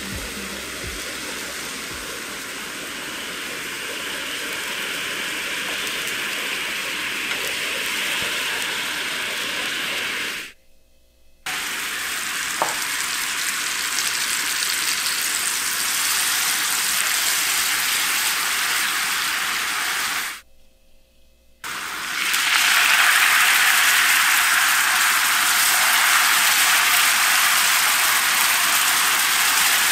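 Sugar, milk and water syrup bubbling and sizzling in a nonstick frying pan as it boils down to caramel, a steady hiss. It cuts out to near silence twice, about a third and two-thirds of the way through, and comes back louder for the last third.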